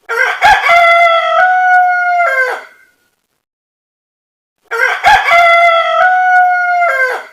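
Rooster crowing twice, two long crows a couple of seconds apart, each ending with a falling note.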